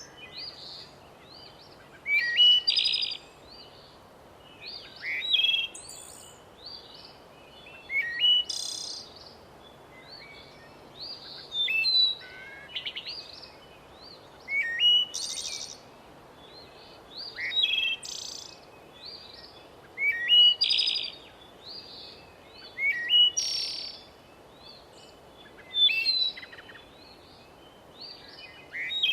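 A songbird singing, repeating a short chirping phrase of a second or so about every three seconds, over a faint steady background hiss.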